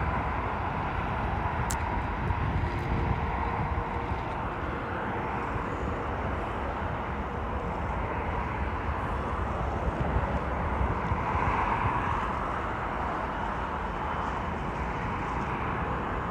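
Jet airliner on its landing approach, a steady low rumble and roar of engine noise that swells a little about eleven seconds in.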